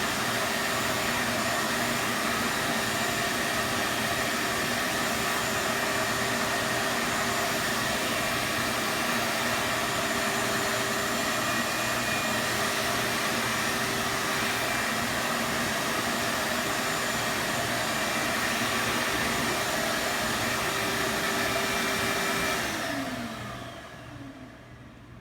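Vacuum cleaner motor running steadily with a whining hiss, then winding down near the end, its pitch falling as it spins down.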